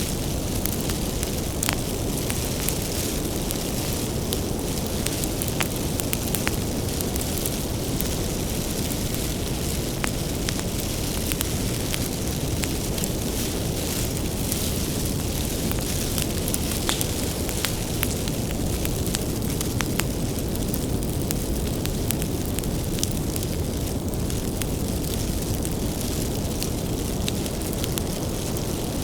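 Wood bonfire burning with a steady low rumble of flame and frequent sharp crackles and pops from the firewood.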